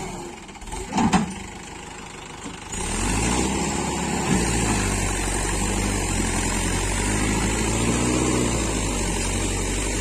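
A tractor engine running steadily and loud, its pitch rising and falling a few times as it is revved. A sharp knock comes about a second in, and the engine sound swells up nearly three seconds in.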